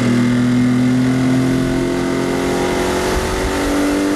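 Chrysler 75 hp two-stroke outboard motor pulling hard to raise a water skier onto his skis, its pitch climbing slowly as the boat gains speed.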